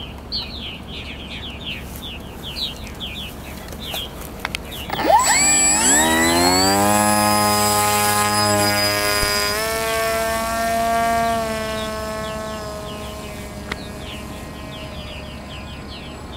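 Electric motor and propeller of a foam RC flying wing spinning up about five seconds in for the hand launch, then running at steady throttle as a whine that shifts up in pitch once and slowly fades as the plane flies away.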